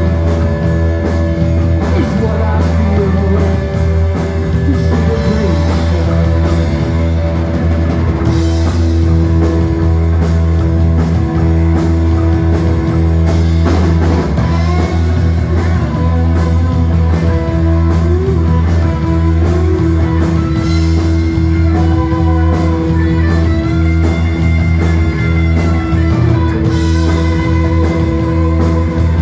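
Live rock band playing: two electric guitars, electric bass and drum kit, loud and continuous.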